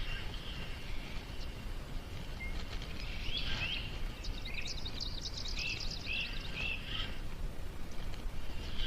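Birds singing: two rising chirps about three seconds in, then a fast high trill and three short falling notes. Underneath runs a steady low outdoor background noise.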